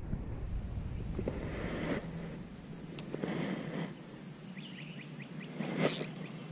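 Steady high-pitched insect trill over rural ambience, with a sharp click about three seconds in and a short louder rattle near the end as the spinning reel is handled.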